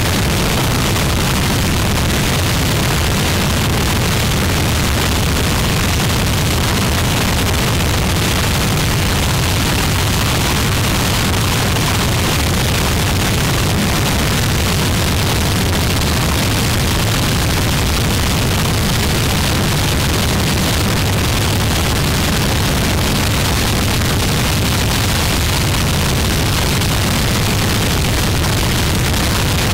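Harsh noise music: a dense, unbroken wall of noise, heaviest in the low end, with a steady, unchanging loudness.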